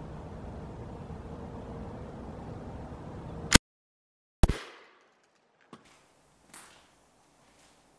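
Steady outdoor background hum, cut off about three and a half seconds in by a sharp crack: a shot from a Daisy PowerLine 880 multi-pump air rifle that misses the pigeon. After a second of silence comes another sharp snap with a short ringing tail, then a few faint knocks.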